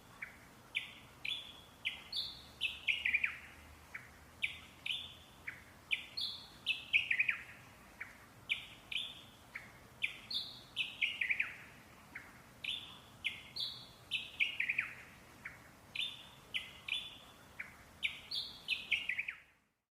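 Parrots singing: bright high chirps, repeated in phrases, with a run of notes stepping down in pitch about every four seconds. The song cuts off abruptly near the end.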